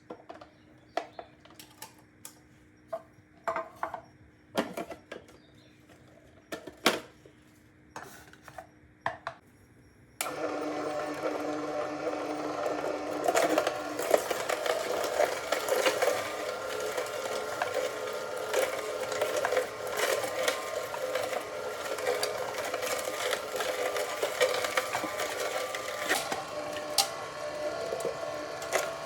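A few scattered sharp knocks, then about ten seconds in an electric juicer starts and runs steadily, juicing apple, carrot and beetroot.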